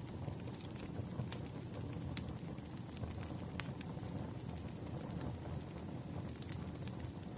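Wood fire burning: a steady low rumble of the flames with scattered sharp crackles and pops from the burning logs, a few louder ones and a small cluster near the end.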